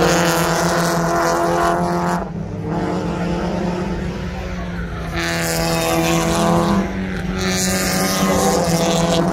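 Mazda Miata race cars' four-cylinder engines running hard as the cars lap the circuit. The sound changes abruptly about two seconds in and again about five seconds in.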